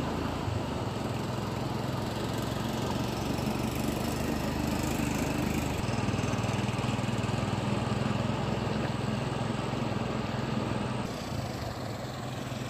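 A small engine running steadily with a low hum, under an even rushing hiss of churning river water. The sound shifts slightly about six seconds in and again near the end.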